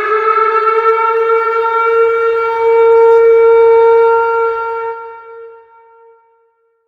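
Tornado warning siren sounding one long, steady wail that fades out about five seconds in.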